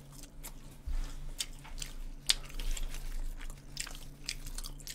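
Chewing of McDonald's french fries close to the microphone: a scattered string of short mouth clicks, with a low steady hum underneath.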